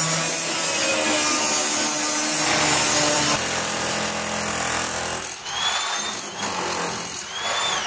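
Electric angle grinder cutting sheet steel, a steady grinding noise. In the second half a hand-held power tool's motor whines up to a high pitch, dips briefly, and starts running down at the very end.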